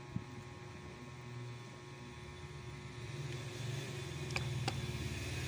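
Mini sewing machine's small electric motor running and driving the needle mechanism: a steady low hum with a fast flutter that grows louder in the second half. Two light mechanical clicks come near the end.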